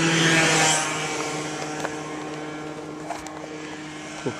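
A motor vehicle passing close by, loudest just after the start and fading away, over a steady low hum.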